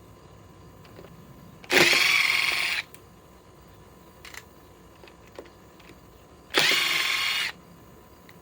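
Milwaukee M18 cordless impact driver in its lowest speed setting, running in two bursts of about a second each as it backs old screws out of a tree stump.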